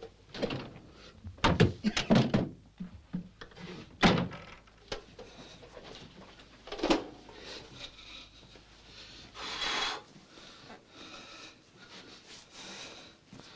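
Knocks and thuds as a bathroom scale is shoved into a wardrobe and doors bang shut, with one sharp knock about 4 s in and another about 7 s in. Softer rustling of clothes follows.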